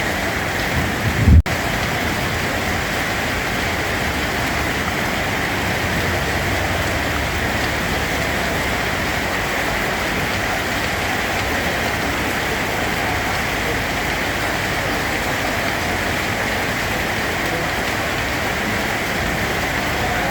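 Steady, even rainfall. About a second in there is a brief low thump, the loudest moment, followed immediately by a split-second break in the sound.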